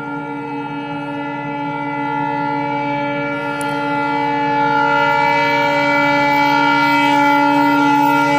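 Diesel locomotive horn held in one long, steady multi-note blast as the train approaches, growing steadily louder.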